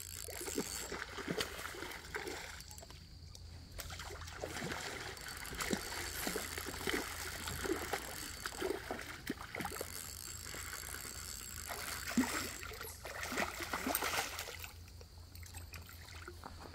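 A hooked steelhead thrashing in a shallow creek, water splashing and sloshing in irregular bursts, busiest about a second in, midway, and again near the end.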